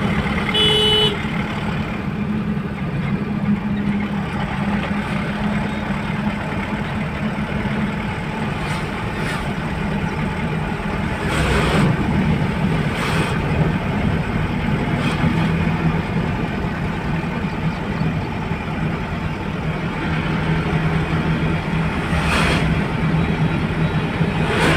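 Truck engine running steadily with road and tyre noise, heard from inside the cab while driving. A vehicle horn toots briefly about a second in, and oncoming vehicles rush past a few times, around twelve seconds in and near the end.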